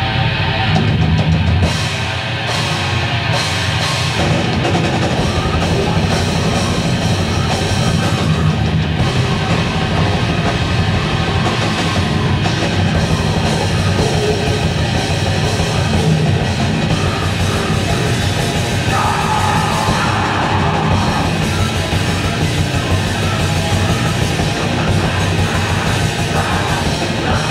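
Grindcore band playing live: loud, dense, heavy drum kit and distorted rock instruments.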